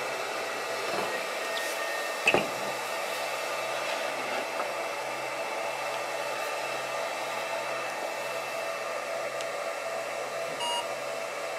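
Steady fan-like whir with several steady tones from the handheld fiber laser marking unit, with one sharp knock about two seconds in. Near the end comes a short electronic beep as a phone scanner reads the laser-marked 2D barcode.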